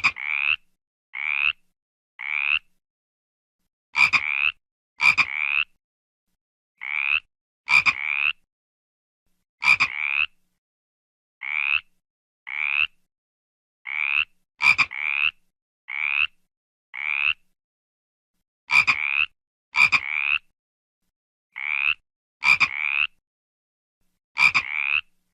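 Frog croaking: a long series of short croaks, each about half a second and rising slightly in pitch, coming singly or in quick pairs with dead silence between them.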